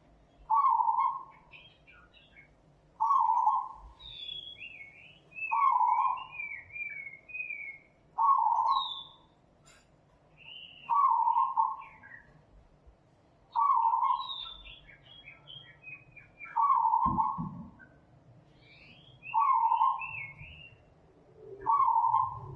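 A bird's single hooting call, repeated evenly about every two and a half seconds, with other small birds chirping and twittering between the hoots.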